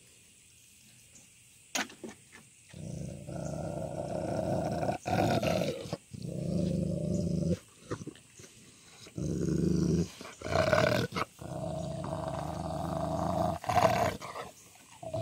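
Kangal/Great Pyrenees mix dog growling and snarling over a raw chicken thigh, guarding its food. The growling starts about three seconds in and goes on in long low bouts broken by short pauses.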